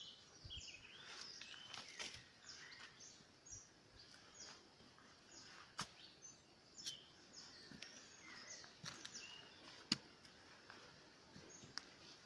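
Faint, scattered bird chirps, many short calls sliding down in pitch, with a few sharp clicks, the loudest about ten seconds in.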